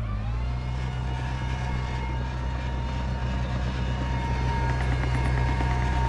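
Diesel engine of a Komatsu D31P crawler bulldozer running steadily under load, its pitch rising a little at the start.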